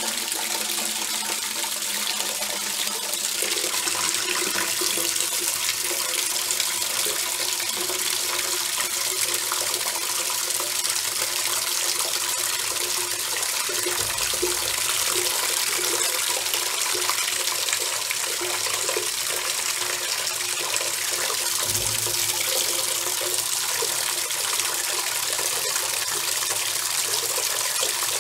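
Water pouring steadily into a bucket, an unbroken splashing rush.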